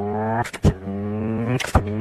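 Car engine revving through the gears, each stretch climbing a little in pitch and broken by a sharp click at the change.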